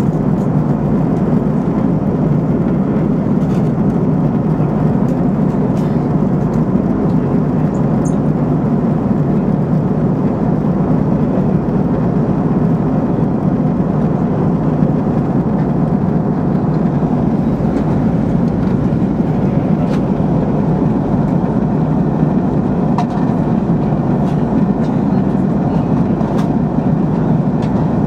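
Steady drone of an airliner's engines and rushing airflow heard from inside the passenger cabin, a loud, even noise.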